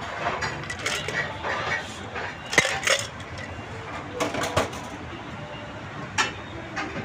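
Metal bar tools, a cocktail shaker and mesh strainer, clinking and knocking as they are handled and set down on a bar counter. It comes as a series of sharp clinks, the loudest about two and a half seconds in and another single sharp clink near six seconds.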